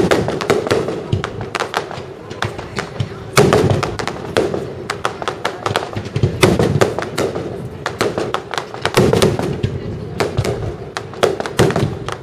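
Aerial fireworks display: a dense, rapid string of bangs and crackles from bursting shells, with louder bangs every few seconds.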